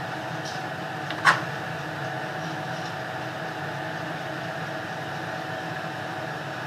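Steady machine hum, broken once a little over a second in by a single sharp tap of a knife on the board as the rolled dough is cut.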